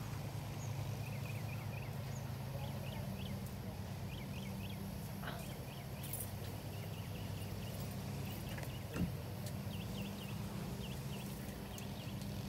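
Quiet outdoor ambience: a steady low hum with faint short bird chirps scattered throughout, and a single sharp knock about nine seconds in.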